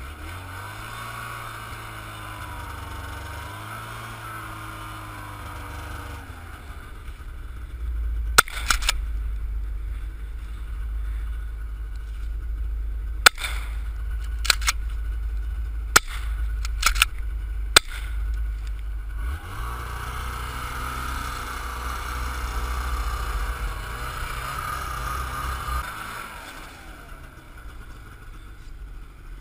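Snowmobile engine running, its pitch rising and falling, with a low steady rumble in the middle stretch. Through that middle stretch come several sharp gunshots, about four to six, spaced one to five seconds apart, from a hunter's long gun shooting at willow ptarmigan.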